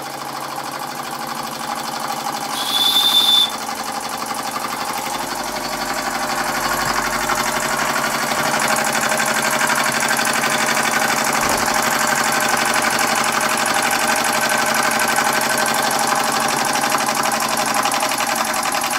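Empire B-43 model steam engine's single cylinder running fast with a rapid, even chuff that grows gradually louder. About three seconds in, a short high-pitched burst of steam is let off from a valve on the boiler.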